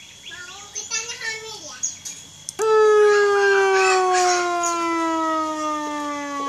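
Electronic siren module, one of its 15 tones: about two and a half seconds in, a loud tone starts and slowly falls in pitch. Faint voices come before it.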